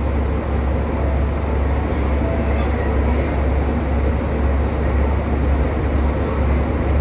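Steady hum and noise of a JR Kyushu 813 series electric train standing at a station platform with its equipment running, with no distinct events.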